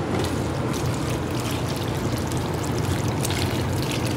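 A steady wash of rain under a low hum. Near the end, melted butter starts pouring from a pot onto a pan of shredded chicken.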